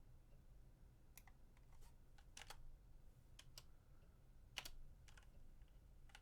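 Faint, irregular key presses on a computer keyboard, about ten separate clicks, some in quick pairs, over a low steady room hum.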